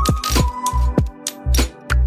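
Background music: an electronic track with a steady beat of low drum thumps about twice a second and a held melody note.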